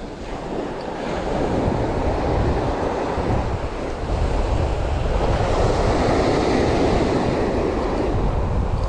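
Surf breaking and washing up a sandy beach, with wind buffeting the microphone. The wash swells louder about five seconds in.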